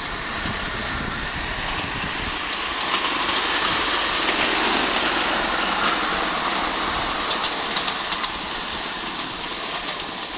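Miniature live-steam locomotive running along a ride-on garden railway track with driver and passengers aboard, a steady noisy running sound with a few sharp clicks about eight seconds in.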